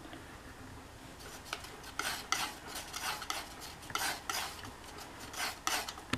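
A metal palette knife mixing paint on a palette: a run of short scraping strokes that starts about a second in.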